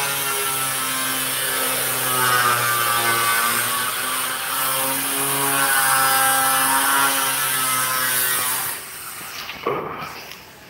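Trolley karaoke speaker playing a karaoke track during a sound test: a buzzy melody of long held notes that bend in pitch, cutting off about nine seconds in.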